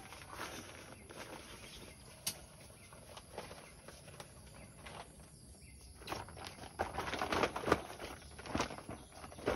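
Thin nylon fabric of a deflated Naturehike inflatable sleeping pad rustling and crinkling as it is handled and unfolded, in irregular bursts that grow busier and louder in the second half.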